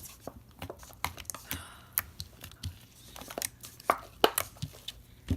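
Homemade Jot-glue slime being stretched and squished by hand, giving off irregular sticky clicks and pops.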